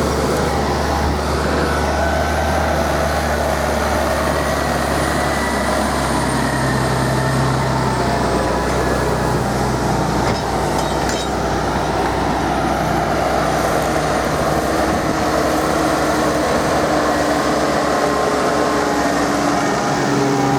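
Case tractor engines running steadily under load while ploughing, with a deep, even hum.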